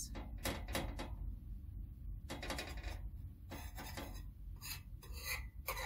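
Table knife scraping and spreading butter across a hot skillet, a series of short rasping strokes at irregular intervals, over a low steady hum.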